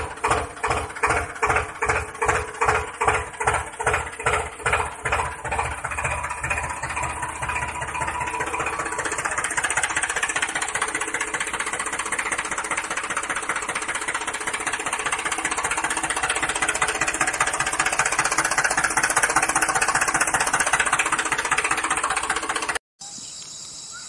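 Tractor engine sound chugging at a slow, even beat of two to three a second, then speeding up into a steady run. It cuts off suddenly near the end.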